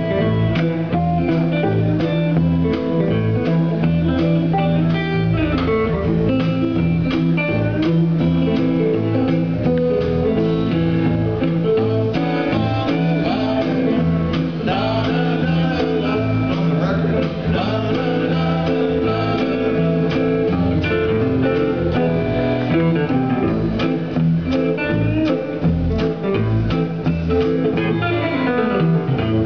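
Live band playing: two hollow-body electric guitars over a drum kit keeping a steady beat.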